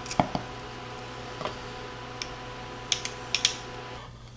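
Stainless steel garlic press clicking as it is squeezed, and a knife tapping and scraping minced garlic on a wooden cutting board: scattered sharp clicks, with a quick cluster about three seconds in. A faint steady hum sits behind them and drops away near the end.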